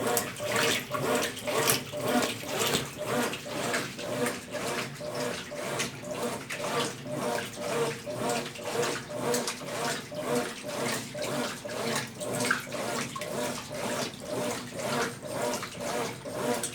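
Consul Facilite 10 kg top-loading washing machine in its wash stage, agitating a load of bed and bath linens in water: a rhythmic sloshing swish about twice a second.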